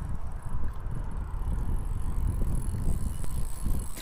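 Wind buffeting the microphone: a gusty, uneven low rumble.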